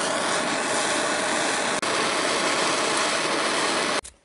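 Handheld gas blowtorch burning with a steady hissing flame, with a split-second break a little under two seconds in, then cut off abruptly near the end.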